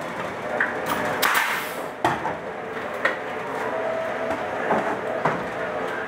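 A board is being fitted to a wall and fastened with a pneumatic nail gun: a series of sharp knocks and shots about a second apart, with a longer rustling burst about a second in.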